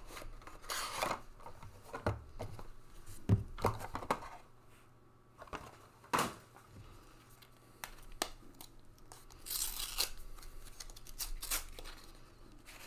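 A Panini Mosaic football hanger box being opened by hand: the cardboard box handled and the pack's silver wrapper torn open, in a series of irregular short rips and crinkles, with a longer rustle about ten seconds in.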